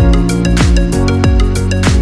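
Electronic background music with a steady kick-drum beat, about one hit every half second or so, under sustained chords.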